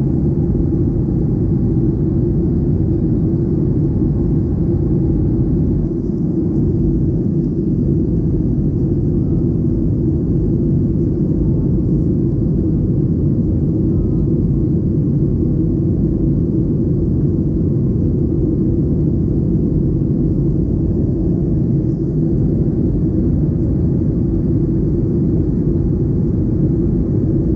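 Steady cabin noise inside a Boeing 737-800: a dense, unchanging low rumble of its CFM56 jet engines and airflow.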